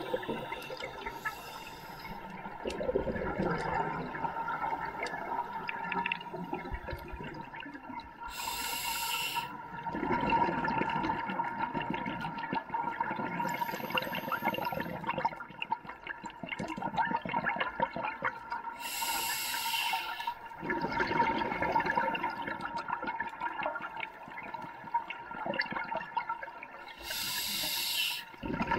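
Scuba diver breathing through a regulator underwater: three short hissing inhales, about ten seconds apart, each followed by several seconds of gurgling exhaled bubbles.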